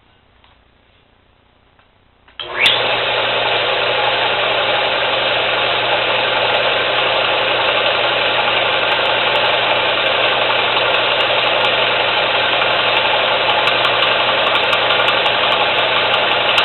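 Old oil-lubricated piston air compressor, in service for over 30 years, starting up about two seconds in and then running loudly and steadily with a low hum under a dense mechanical clatter.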